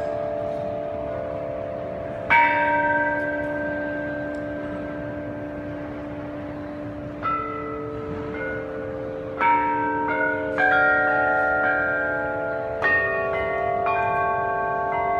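Several bells of different pitches struck one after another, each ringing on long so that their tones overlap. The strikes are a few seconds apart at first and come more closely together after about nine seconds.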